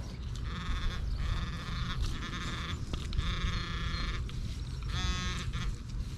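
Metal detector giving warbling electronic target tones: three bursts, the last just over a second long, then a short, quicker stepped buzz about five seconds in, as it is worked over a shallow target, likely a zinc penny.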